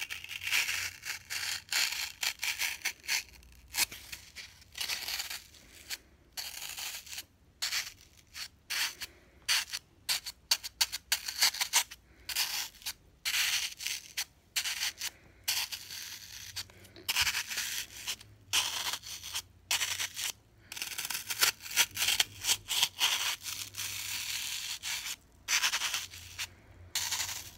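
Metal fork digging into and scraping a block of green floral foam, crunching it in many short, irregular strokes with brief pauses between.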